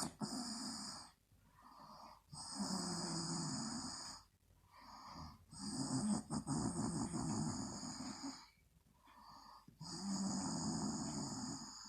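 A woman snoring in her sleep: a long loud snore every three to four seconds, with a softer breath between each.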